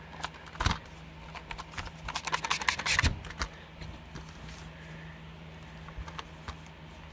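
Plastic Blu-ray cases being handled and set down: a run of clicks and clatters, densest and loudest about two to three seconds in.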